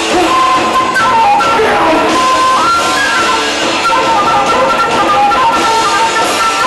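Live rock band music: a flute solo with held and sliding notes played over electric guitar.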